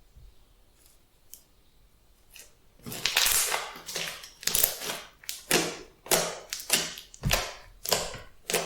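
Glossy slime being squished and pressed by hand: after a quiet start, a run of short squishes begins about three seconds in and repeats roughly twice a second.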